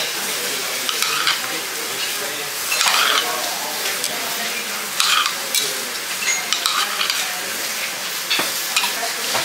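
Steady sizzle from a teppanyaki hot plate, with several clinks of a metal spoon against a small steel saucepan and ceramic plates as sauce is spooned out.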